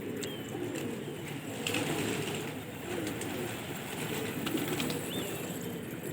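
Domestic pigeons cooing continuously, several birds overlapping. A couple of short high chirps come through, one just after the start and one about five seconds in.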